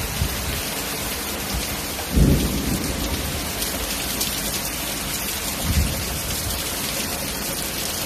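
Heavy typhoon rain pouring steadily. A low clap of thunder comes about two seconds in, and a fainter rumble near six seconds, following a lightning flash.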